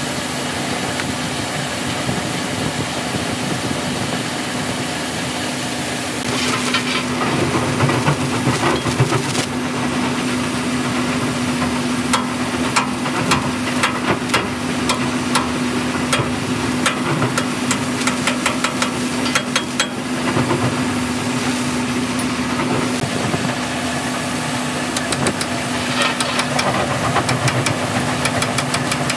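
A steady mechanical hum with one even tone, over bursts of quick metallic clicks and taps from steel hand tools working on a wheel loader's wheel hub and ring gear: from about six seconds in to about twenty seconds, and again near the end.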